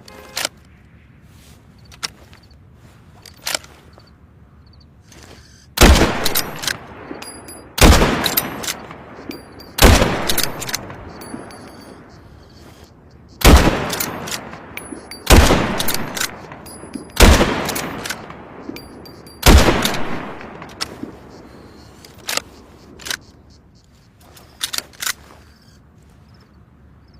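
Remington 700 BDL bolt-action rifle fired seven times, each shot about two seconds apart with a short echoing tail and a longer gap after the third shot. A few light sharp clicks come before the first shot and after the last.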